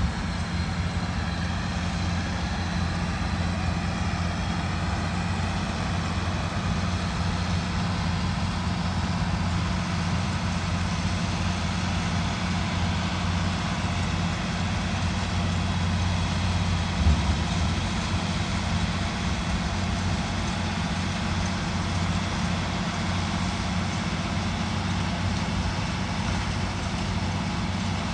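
Vehicle engine idling steadily with an even low hum, and a single brief thump about seventeen seconds in.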